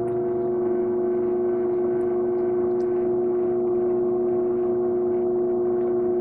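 Electric pottery wheel running at speed: a steady motor hum made of several unchanging tones, with no rise or fall, as wet clay is being centered on the wheelhead.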